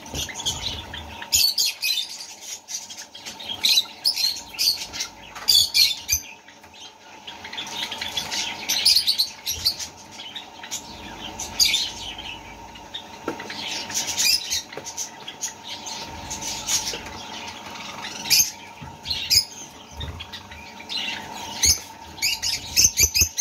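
Nestling chicks calling: many short, raspy chirps repeated irregularly, the begging calls of young birds in the nest, over a faint steady hum.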